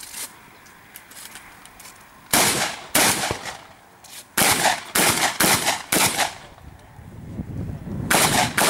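Shotgun shots from a practical-shooting competitor firing at targets, about ten in all. Two single shots come first, then a fast string of about five, then three more in quick succession near the end.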